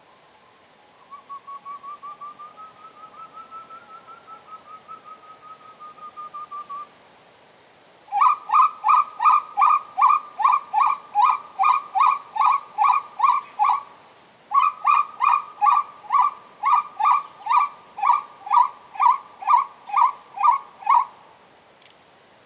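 Whistled uru (wood-quail) call notes. First comes a soft run of quick notes that rises a little in pitch for about six seconds. After a short pause come two long, loud runs of evenly repeated notes, about three to four a second, with a brief break between them. A faint steady high insect drone runs underneath.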